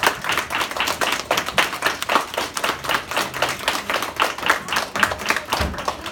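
A room full of children clapping together, a steady patter of many hands with no pause.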